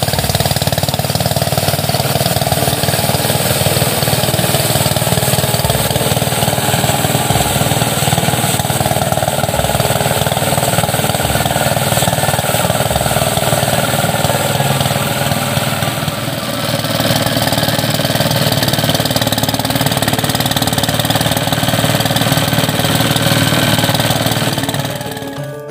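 Engine-driven rice thresher running steadily while paddy stalks are fed into its threshing drum. The sound shifts slightly about two-thirds of the way through and drops away near the end.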